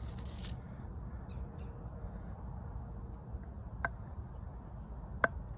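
Low outdoor rumble with a faint, steady high insect chirr. Near the end come two light knocks of wood on a chopping stump, as a log and knife are set up for batoning.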